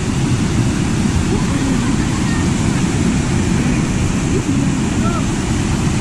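Steady rush of a small waterfall pouring over rocks into a pool, with faint voices of people playing in the water.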